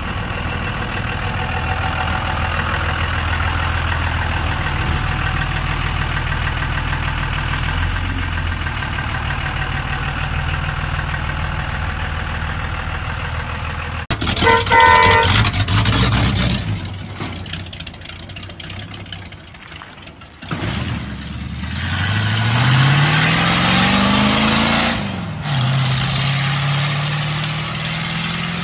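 Old pickup truck engines: one running steadily for about fourteen seconds, then a brief horn-like blast, then a truck accelerating hard with a climbing engine note, a gear change near the end, and the pitch rising again.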